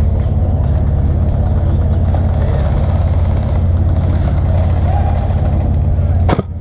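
A vehicle engine running steadily at close range, a low, even hum that cuts off abruptly near the end.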